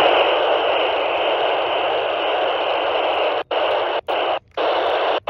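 Retevis RT1 VHF handheld radio hissing loud static from its speaker, tuned to the 146.520 MHz calling frequency. The hiss starts abruptly and cuts out briefly about four times in the last two seconds.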